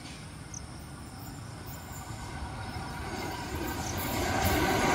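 Passenger train approaching along the track, its running noise of wheels on rails growing steadily louder as it nears.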